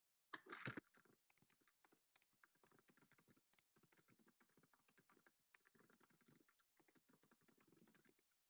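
Faint typing on a computer keyboard, a rapid uneven run of soft key clicks, after a louder short bump about half a second in.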